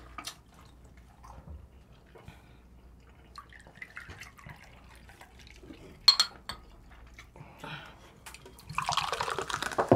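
Small liquid pours at a table: soju trickles faintly from a glass bottle into a small glass, with a sharp clink of glass about six seconds in. Near the end comes the loudest part, a drink poured from a can into a glass with a fizzing hiss lasting about a second.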